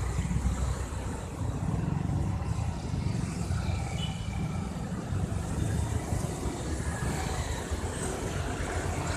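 Street traffic: vehicles passing on the road with a steady low engine and tyre rumble.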